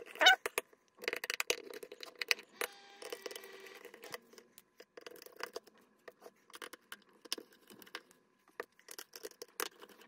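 A precision screwdriver turning out the small hinge screws of a Dell Latitude 5290 2-in-1, heard as scattered light clicks and scrapes of metal on metal. Faint squeaks come between about one and four seconds in.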